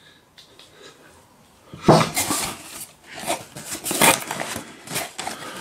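Crumpled packing paper rustling and crinkling inside a cardboard shipping box as a hand rummages through it, in irregular bursts that begin about two seconds in after a quiet start.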